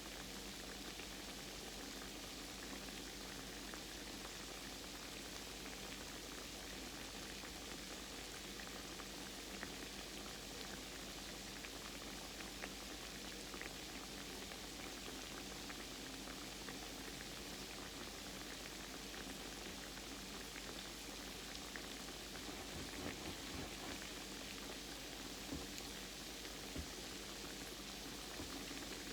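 Croquettes frying in hot oil: a steady soft sizzle with scattered small pops, and a few louder pops near the end.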